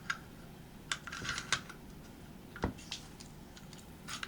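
Small metal clicks and brief scraping rattles as a Ruger Mark II pistol's bolt and receiver parts are handled and fitted together, about half a dozen scattered light clicks with one sharper click near the middle.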